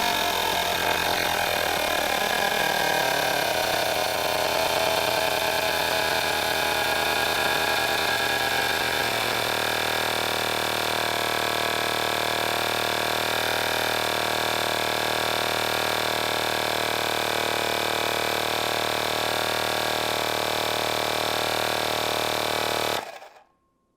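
Cordless portable air compressor (tire inflator) running while pumping up a bike tire, its motor pitch sinking a little over the first several seconds and then holding steady. About a second before the end it stops abruptly, the auto shutoff cutting in at the set 120 PSI.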